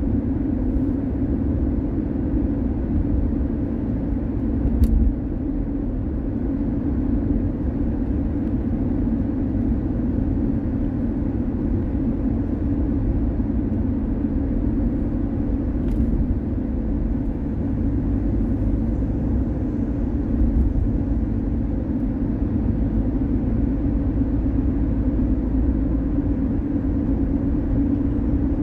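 Car driving on the road: a steady low rumble of engine and tyre noise, with a faint click about five seconds in and another around sixteen seconds.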